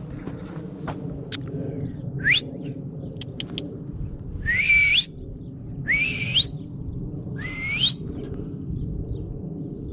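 A man whistling his call to a yearling horse, the signal he is teaching it so it knows him and comes: four rising whistles, the first a short upward sweep, the next three each climbing, holding briefly, then climbing again. A steady low rumble runs underneath.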